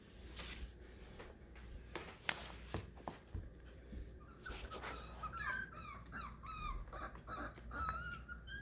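Four-week-old beagle puppies whimpering: light scattered scratches and taps, then from about halfway a run of short, high, wavering whines.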